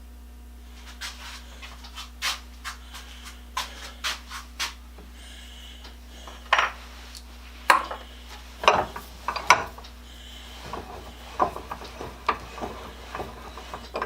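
Irregular metal clinks, knocks and scrapes of steel parts and hand tools being handled, with a few louder knocks in the middle. A steady low hum runs underneath.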